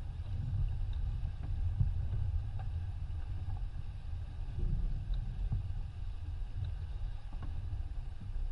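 Steady low rumble of wind buffeting the microphone, with water rushing along the hull of a racing yacht under sail. A few faint knocks come from gear on deck.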